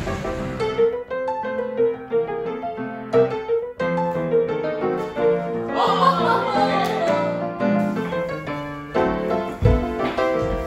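Piano music playing a melody of separate notes. There is a brief gliding sound about six seconds in and a low thump near the end.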